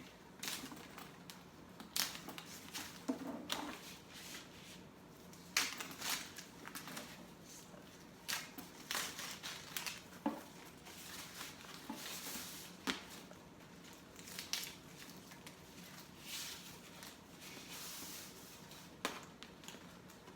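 Packing stuffing crinkling and rustling in irregular handfuls as it is crushed and pushed back into a backpack, with scattered sharp crackles.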